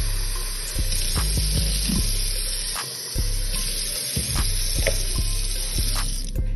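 Kitchen tap running a stream of water into a stainless steel sink, a steady hiss that stops about six seconds in. Under it, background music with a deep bass beat.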